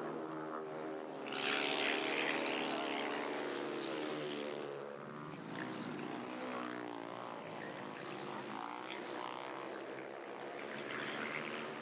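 Pack of speedway motorcycles racing, their single-cylinder engines buzzing together and rising and falling in pitch as the riders go round the track. The engines are loudest and harshest from about one and a half to four seconds in.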